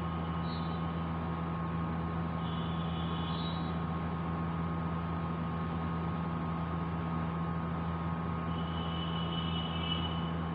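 Steady low hum with an even hiss of room noise, unchanging throughout, with faint high-pitched tones briefly three times.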